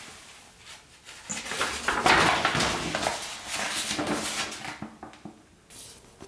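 Waterproof folding map being unfolded by hand, its sheet rustling and crinkling. It starts about a second in, is loudest around two seconds in, and dies away near the end.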